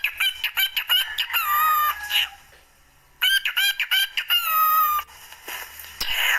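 Cockatiel whistling a short phrase over and over: a quick run of chirpy notes ending in a long held whistle. It comes twice, with a short pause between, and starts again near the end.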